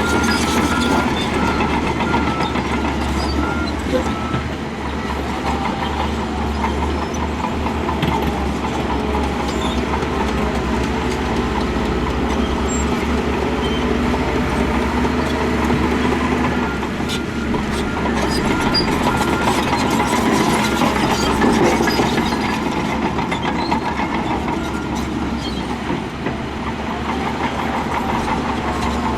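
Heavy diesel earthmoving machinery, a bulldozer and wheel loader, running steadily under work, with a steady whine and scattered metallic clanks.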